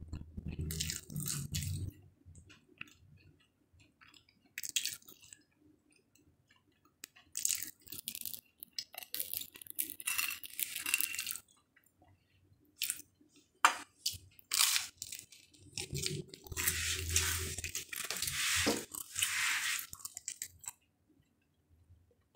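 Close-up crunching and chewing of a crispy fried egg on toast, in irregular bursts with quiet gaps between bites.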